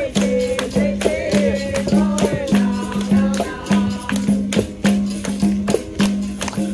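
Capoeira roda music: a berimbau played in a repeating rhythm with its caxixi rattle, sharp percussion strikes, and voices singing.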